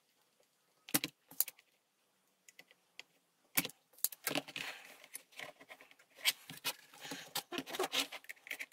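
Blue spring-loaded desoldering pump (solder sucker) going off with sharp clicks as its plunger snaps back, twice in the first few seconds, followed by a run of small clicks and rattles as the pump and the circuit board are handled.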